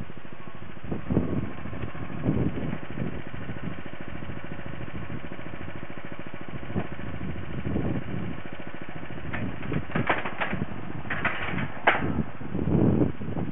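Small engine of a motorized rail trolley idling steadily with a fine, even putter. Thumps, then sharper metallic knocks and clanks near the end, as the trolley is shifted and turned around on the rails.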